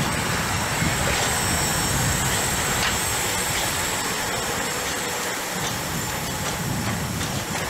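Steam locomotive standing at a platform, giving off a steady hiss with a low rumble underneath and no exhaust beats.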